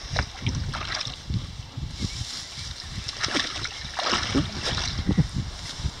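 Water sloshing and splashing as a dog wades in a shallow creek at the bank, among irregular low bumps and rustle of the camera being handled.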